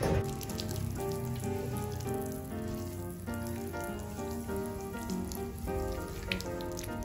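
Background music with a melody, over the hiss and patter of water being sprayed onto a metal wire pet cage.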